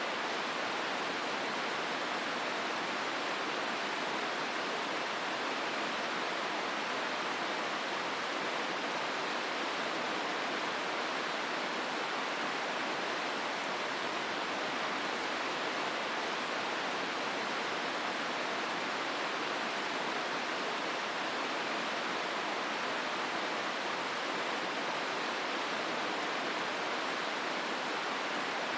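Hozu River rushing through its rocky gorge: a steady, even rush of flowing water with no change in level.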